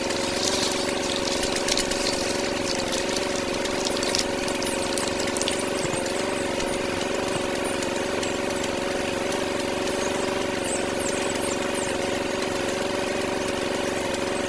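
Small electric motor running steadily with an even hum, with faint scattered clicks and crackles over it.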